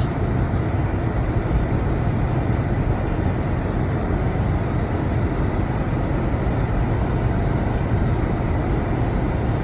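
Steady low rumble of a car's engine and road noise heard from inside the cabin, with no exhaust rattle or drone from the freshly repaired muffler.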